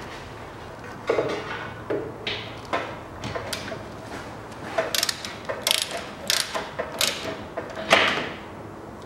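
Hand ratchet wrench clicking in short irregular runs while the steering-rack mounting bolts are tightened, with a louder metal clack near the end.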